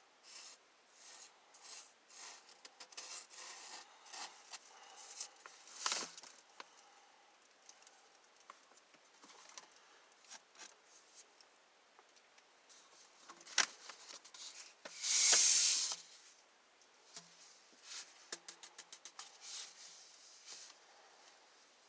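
Hands working on a pool hose while patching its cracks with super glue and baking soda: scattered light rubbing, taps and scratches, with a short hiss of about a second two-thirds of the way in and a quick run of ticks after it.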